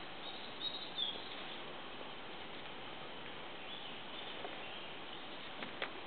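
Quiet forest ambience: a steady faint hiss with a few faint, high bird chirps. A few light clicks near the end.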